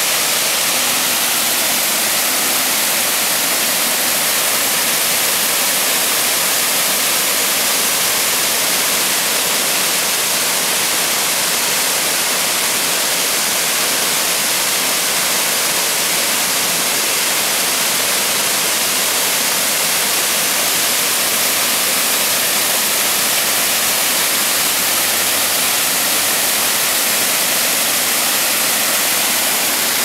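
Wide waterfall rushing steadily, a continuous hiss of falling water, strongest in the high pitches and unchanging throughout.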